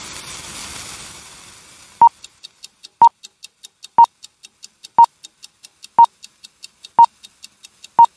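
A whoosh that fades out, then a countdown-style sound effect: a short high beep once a second, seven in all, with quick ticks between the beeps.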